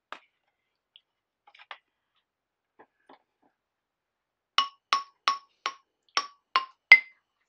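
Handmade wooden xylophone bars struck with a mallet. A few faint light taps come first, then seven clear ringing notes at an even, quick pace near the end; the last note is higher than the rest.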